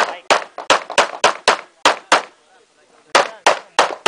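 Rapid string of handgun shots in a practical shooting stage, about three a second: eight shots, a pause of about a second, then three more.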